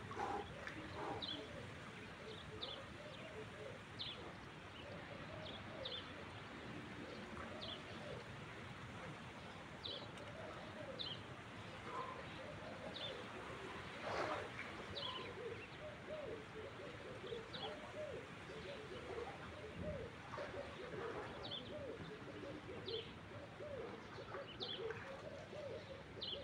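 Doves cooing over and over, with a small bird giving short high chirps about once a second, over a faint steady background wash.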